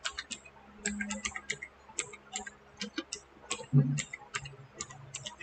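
Irregular sharp clicks, two or three a second, of hands working a computer's keys and mouse. A short low hum comes about four seconds in.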